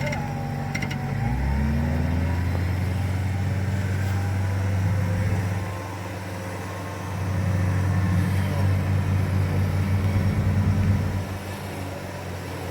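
Off-road 4x4 engine working under load. It revs up about a second in, eases off around six seconds, revs again and then drops back near the end.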